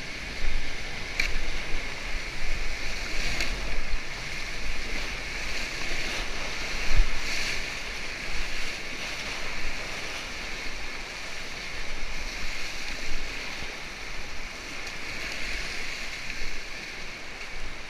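Whitewater rapid rushing and splashing against an inflatable paddle raft as it runs the waves, with a few louder splashes, the biggest about seven seconds in. Wind buffets the microphone with a low rumble.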